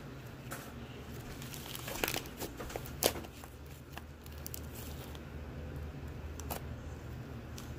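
Slime being pressed and poked with fingers, giving soft crinkling crackles, with a couple of sharper clicks about two and three seconds in.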